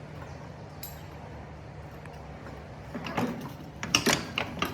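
A steady low hum, then from about three seconds in a quick run of sharp clicks and knocks, the loudest near four seconds.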